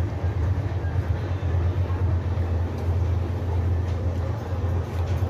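Steady low rumble and running noise of a passenger train coach in motion, heard from inside the coach.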